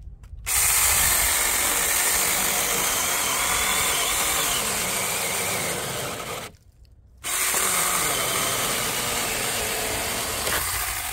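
Saker Mini cordless electric chainsaw (20-volt battery, 4-inch bar) cutting through a fallen log about 4 inches thick. It runs in two long stretches, with a brief stop about six and a half seconds in.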